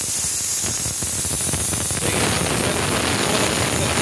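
10 HP twin-cylinder air compressor pump running with a rapid tak-tak knocking. About two seconds in, a steady hiss of air joins in. The owner suspects a faulty non-return valve behind the knocking.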